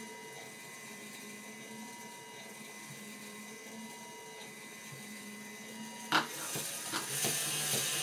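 A Lego electric motor running steadily, whining as it turns the gear train and rotor of a Lego Wankel rotary engine model. About six seconds in there is a sharp click, and after it the mechanism runs louder and rougher.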